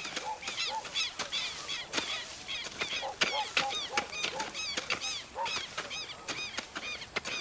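A flock of birds calling: many short, arched calls in quick succession, several a second, some high and some lower, overlapping throughout.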